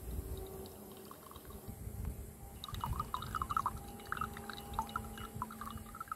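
Thin stream of juice trickling and dripping into a glass mug as grated pulp is pressed on a plate above it. The small splashes start about two and a half seconds in and go on irregularly.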